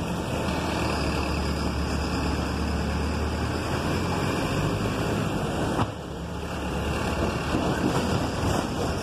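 City bus engine and road noise heard from inside the cab while driving, with a steady low drone. The drone drops away briefly about six seconds in, then builds again.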